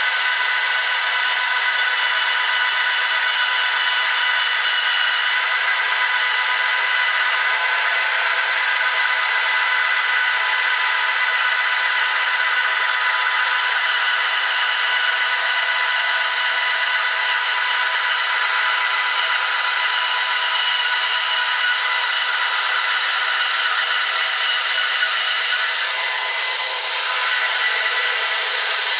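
Mastercraft 9-inch benchtop bandsaw running steadily while its blade cuts a very thin slice off a wooden block fed slowly along the fence. A steady motor and blade whine of several even tones sits over the hiss of the cut.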